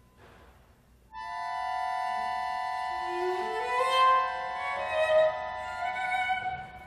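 Contemporary classical trio of cello, guitar and accordion playing: after a near-silent pause, a sustained chord enters abruptly about a second in, with a lower line sliding slowly upward beneath it, and it fades away near the end.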